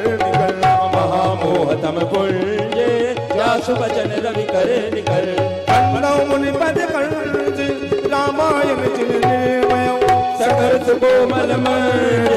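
Live devotional music with tabla drumming under steady held melody notes, with a voice singing over it.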